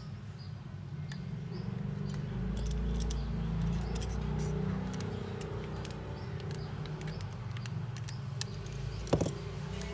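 Small metal repair tools clicking and tapping against the phone's parts in a scatter of light clinks, with one louder click about nine seconds in, over a low steady hum.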